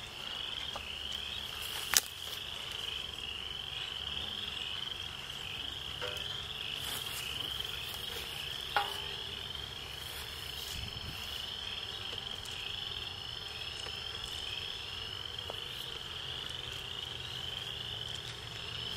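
A steady chorus of frogs calling, a dense run of high, evenly repeated rising chirps, with a sharp click about two seconds in and another near nine seconds.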